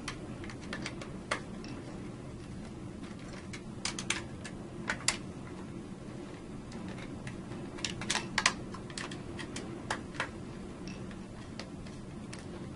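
Scattered light clicks and taps of hands handling and fitting parts on an Eaton Series NRX power circuit breaker, bunched in small clusters about four to five seconds in and again around eight seconds in.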